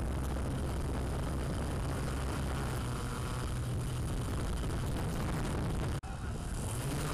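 A steady, low motor hum over a hiss, breaking off for an instant about six seconds in.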